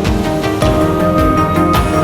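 Background music with a steady beat and sustained synth notes.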